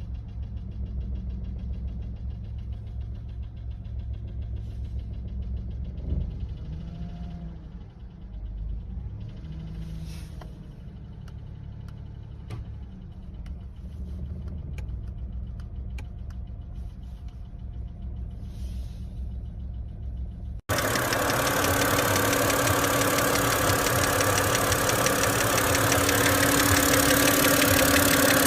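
BMW engine idling with a knock, heard as a fast, even ticking over its low running note. About two-thirds of the way through, the sound cuts to a much louder, closer and harsher recording of the running engine.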